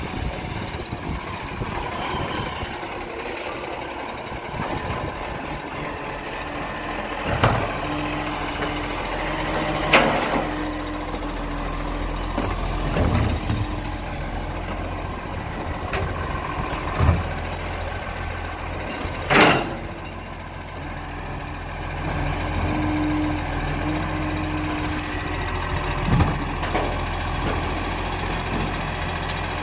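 Iveco Acco side-loader garbage truck's diesel engine running as it pulls up and stops, with a loud burst of air-brake hiss about two-thirds of the way through. Several sharp clunks and knocks are scattered through, and a low tone comes and goes twice.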